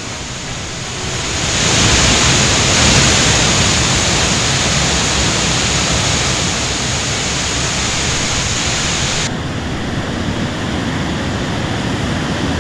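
Waterfall in heavy monsoon flood flow: a steady, loud rush of water that swells about a second and a half in. About nine seconds in it cuts abruptly to a duller rush of water.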